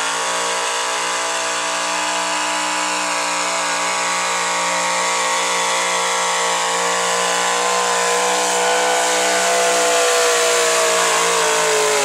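Gasoline V8 of a square-body Chevrolet 4x4 pulling truck held at high revs under full load while dragging a weight-transfer sled. The engine note stays at a steady pitch and sags slightly near the end.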